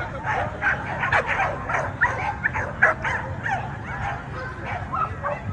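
Several American pit bull terriers barking, yipping and whining, short sharp calls following one another in quick succession and overlapping.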